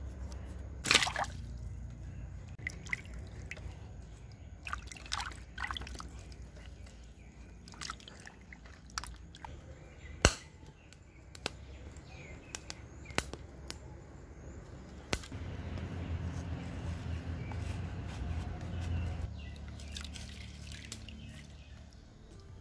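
Water sloshing and dripping as raw potatoes are handled and washed in a clay pot of water, with a dozen or so sharp knocks and clicks, the loudest about a second in and about ten seconds in.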